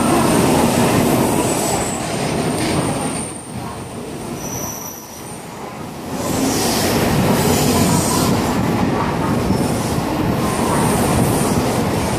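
N700 series Shinkansen bullet train running past along the platform: a loud, dense rumble of wheels and running gear with thin, high-pitched squeals over it. It drops for a couple of seconds about three seconds in, then swells again as further cars go by.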